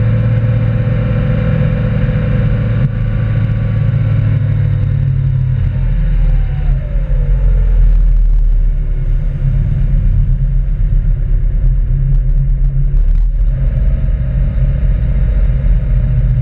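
Tow boat's engine running loud under the stern, with the churn of water from the wake. About six seconds in the engine note drops and turns deeper as the boat slows.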